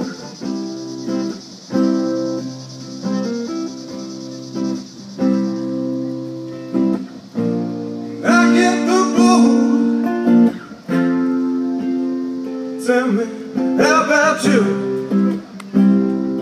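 Acoustic guitar played live, chords strummed about once a second and left ringing between strokes. A man sings over it about halfway through and again near the end.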